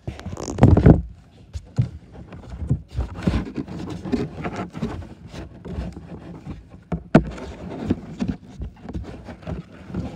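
Handling noise close to the microphone: a heavy thump and rustle in the first second, then irregular knocks, scrapes and rustling.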